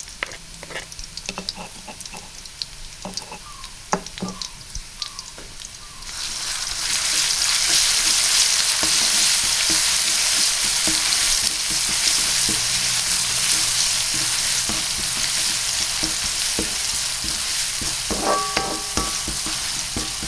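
Sambal (chili paste) frying in hot oil in a pan while being stirred with a utensil. For the first six seconds there are scattered scrapes and clicks over a light sizzle. Then the sizzle swells into a loud, dense bubbling hiss that holds, with a few sharp clicks of the utensil near the end.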